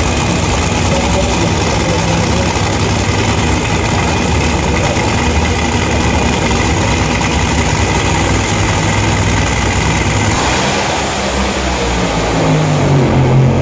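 Two nitro Funny Cars' supercharged V8 engines running at the starting line with a loud, steady rumble. Near the end the sound swells and deepens as the cars go to full throttle on the launch.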